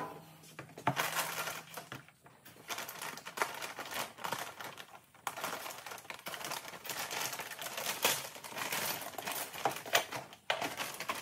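Plastic packaging bag crinkling and rustling in irregular crackles as a coiled TIG torch and its cable are unwrapped and pulled from the bag. A sharp knock right at the start.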